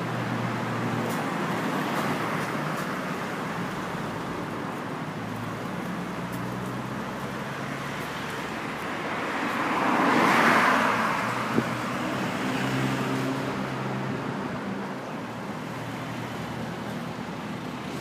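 Road traffic noise over a low, steady engine hum, with one vehicle passing that swells and fades about ten seconds in, then a single sharp click.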